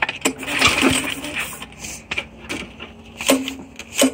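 Handling noise at the lawn mower's engine, which is not running: a series of sharp clicks and knocks with brief squeaks.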